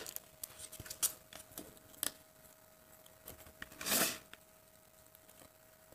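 A few soft clicks and taps of multimeter test leads being handled, the probe tips set against a laptop battery pack's BMS board, with a short rustle about four seconds in.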